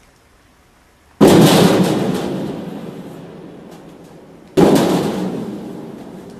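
Two loud booming impacts about three and a half seconds apart, the first just over a second in, each starting suddenly and dying away slowly over a couple of seconds.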